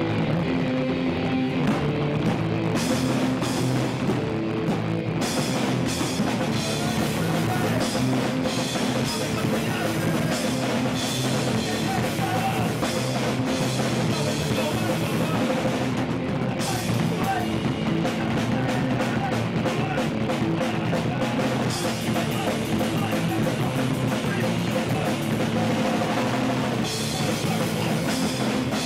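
Hardcore punk band playing live at full volume: distorted electric guitars, bass and a hard-hit drum kit, with shouted vocals into a handheld microphone.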